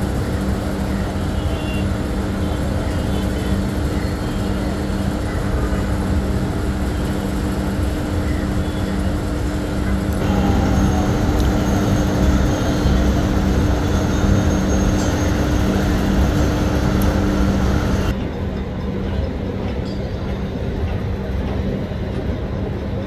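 Steady street traffic noise with a low, even engine hum underneath. The mix changes abruptly about ten and eighteen seconds in, and it sounds duller after the second change.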